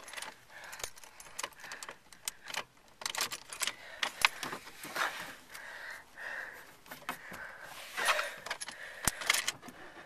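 Irregular metallic jangling, clicking and rattling of hands fumbling around under a car's steering column and dashboard, as if trying to hotwire it; no engine is running yet.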